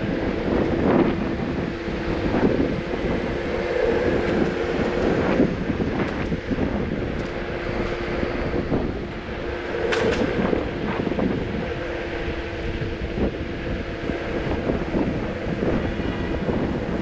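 Wind buffeting the microphone and road rumble while riding a Lime electric rental scooter, with a steady hum running through and a few sharp knocks, the largest about ten seconds in.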